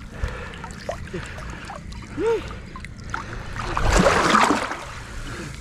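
Water lapping and sloshing, with a louder swell of water noise about four seconds in.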